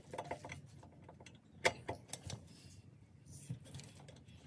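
Flathead screwdriver flicking the toothed star-wheel adjuster of a Subaru WRX's rear drum parking-brake shoes round, tooth by tooth, to set the shoe clearance: a few faint, irregular metallic clicks, the sharpest a little under two seconds in.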